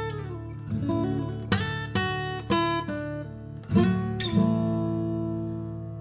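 Acoustic guitar music with strummed chords. The last chord, about two-thirds of the way in, is left ringing and fades away.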